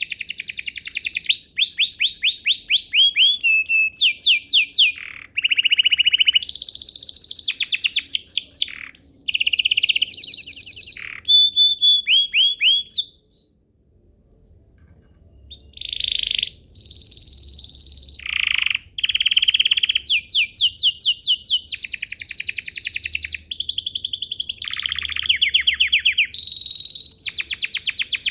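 Domestic canary singing long, fast trills: rapid runs of repeated notes, switching from one phrase to the next, with a pause of about two seconds in the middle before the song resumes.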